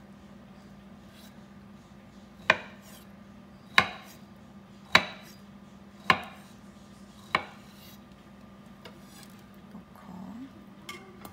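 Chef's knife slicing through a firm, not-quite-ripe avocado half and knocking on a wooden cutting board, five sharp chops about a second apart, then stopping.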